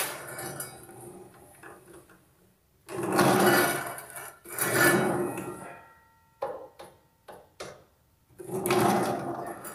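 Wet tile saw's sliding table rolled back and forth along its rails, three passes of about a second each. A few light knocks come between the passes as the table and the metal square are handled.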